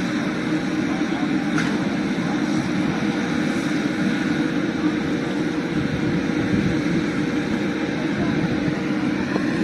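Farm tractor and baler running steadily in the field, an even engine and machine drone with no change in pace.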